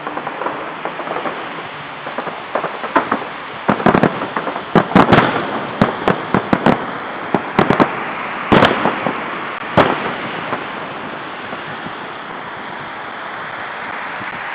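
Fireworks salute going off: a rapid series of bangs and crackles, thickest from about three to ten seconds in, then only a steady hiss remaining near the end.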